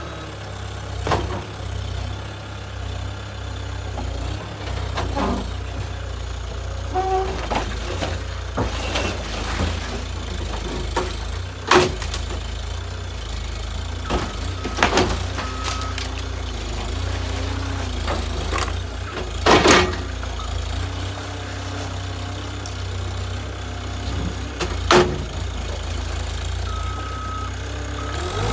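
Skid steer engine running steadily under load, with several sharp metal bangs and crunches as it tears the roof off a Volkswagen Cabriolet.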